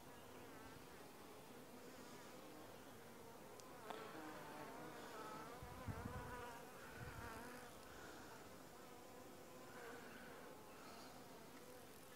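Honeybees buzzing faintly around an opened nuc. Bees fly close past with a wavering pitch, louder from about four seconds in, and there are a couple of soft low bumps near the middle.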